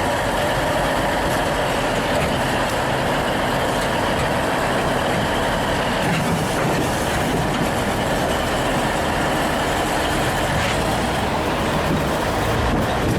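Heavy diesel machinery running steadily with a loud, even engine noise.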